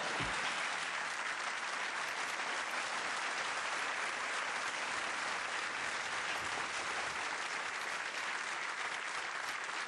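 Large theatre audience applauding, a dense, steady clapping that holds at an even level.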